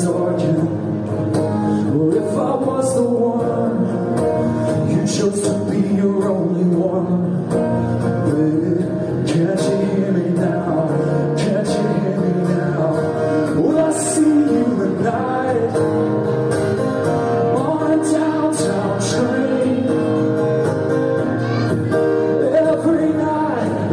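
A man singing live into a microphone while playing an acoustic guitar, amplified in a hall.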